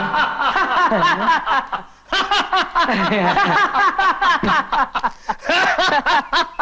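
Male laughter in quick, repeated pulses, loud throughout, breaking off briefly about two seconds in before starting again.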